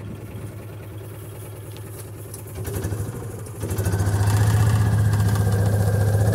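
Old farm utility vehicle's engine idling, then picking up about two and a half seconds in and speeding up to a louder, steady run about a second later. The exhaust is noisy because a hole has rusted out in the muffler.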